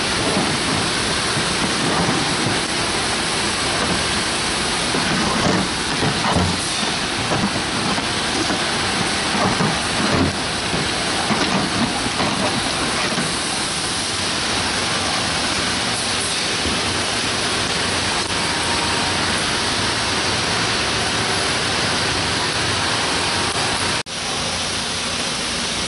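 Loud, steady rushing background noise of an industrial shop floor, with scattered knocks and rattles of tool cases being moved in a metal toolbox drawer between about 5 and 13 seconds in. The noise drops out for an instant near the end.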